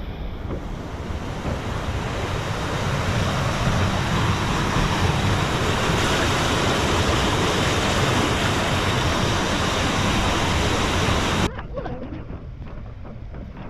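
Loud, steady rushing of rain-swollen water, growing louder over about ten seconds. It cuts off abruptly near the end, leaving a much quieter background with a few faint knocks.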